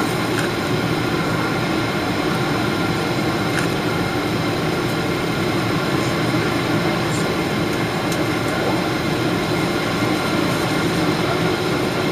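Steady cabin noise inside a Boeing 777-300ER in flight: the even drone of its GE90 engines mixed with the rush of air past the fuselage, heard from a window seat over the wing.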